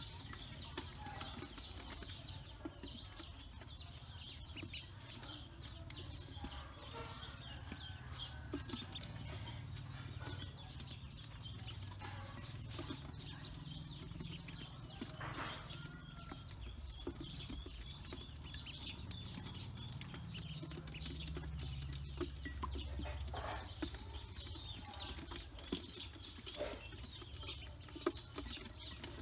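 A brood of Pekin ducklings peeping nonstop, many short high peeps overlapping, with light clicks and taps as they peck at feed in a metal bowl. A low rumble runs underneath.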